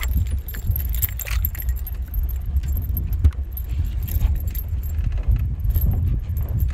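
Wind buffeting the microphone in a steady low rumble, with light metallic rattles and clicks as the rod, line and lure with a hooked perch are handled.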